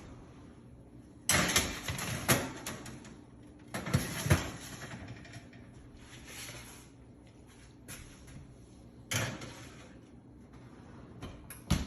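Oven door and baking sheets being handled: a series of separate knocks and short sliding scrapes, about six in all, with quieter stretches between.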